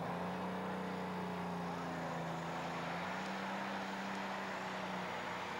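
Modified pulling tractor's engine running flat out under load, dragging the weight sled, with a steady high-revving note that holds nearly the same pitch throughout.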